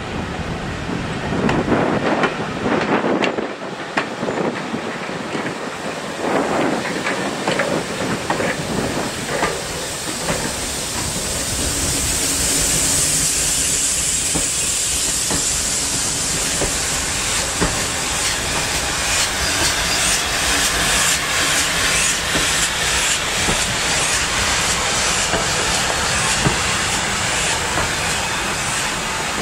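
Steam locomotive with knocking and clattering for the first several seconds. Then, from about twelve seconds in, a loud steady hiss of steam, with an even, rapid beat through the latter part.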